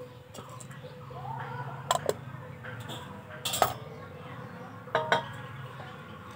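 Kitchenware clinking and knocking as a clay lid goes over a bowl and a large brass plate is handled and set down on a wooden chopping block. There are five sharp hits in three clusters: two about two seconds in, one about three and a half seconds in, and two about five seconds in.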